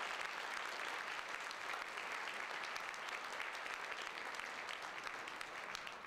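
Audience applauding: dense clapping from a crowd, easing slightly toward the end.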